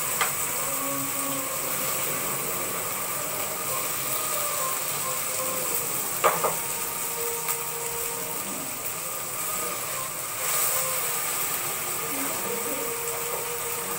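Marinated chicken pieces sizzling in hot oil in a frying pan, over a steady hum. A few sharp clicks about six to seven seconds in as the pan is handled.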